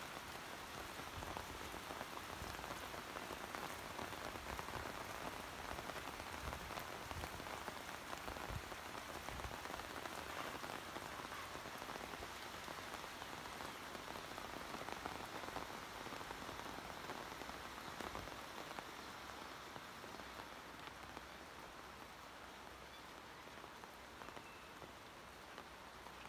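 Heavy rain falling steadily on corrugated metal roofs, easing a little about twenty seconds in.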